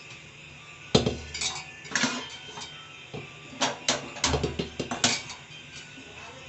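Metal pressure cooker being handled and set on a gas stove: a loud clank about a second in, then more clatter and a quick run of sharp metallic clinks.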